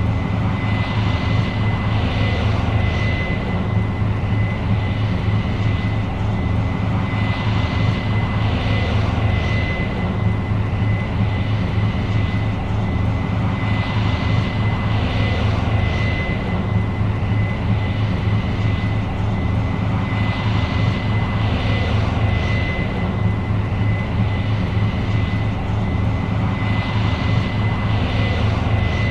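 Combine harvester running steadily in corn: a deep engine hum with a constant high whine, and a rushing noise that swells and fades every five or six seconds.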